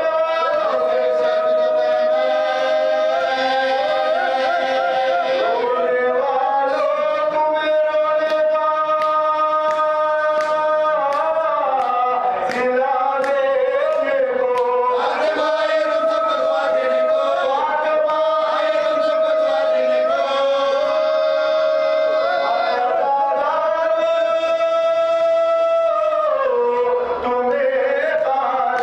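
Men's voices chanting a marsiya, an Urdu elegy, unaccompanied: a lead reciter with supporting voices, holding long drawn-out notes that slide up and down in pitch.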